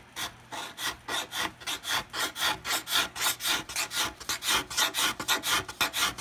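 Small hand scraper shaving a glued-in guitar rosette down flush with the top, in quick short rasping strokes about four a second.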